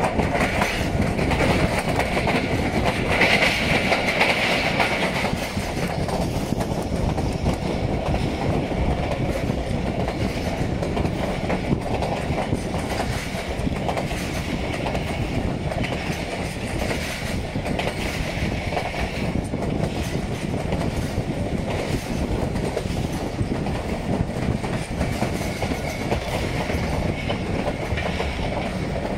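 Passenger train running at slow speed, heard from inside the coach: a steady rumble of wheels on rails with irregular clickety-clack over the rail joints. A high whine rises briefly a few seconds in.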